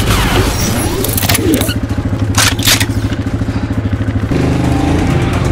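ATV engine idling with an even low pulse. A few sharp clicks and clacks come in the middle as a bolt-action Nerf blaster is handled, and the engine pattern changes about four seconds in.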